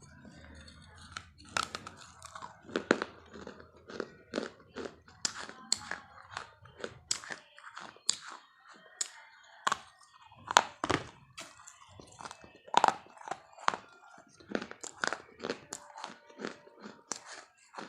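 Someone biting and chewing crunchy food close to the microphone: irregular crisp crunches and clicks, two or three a second.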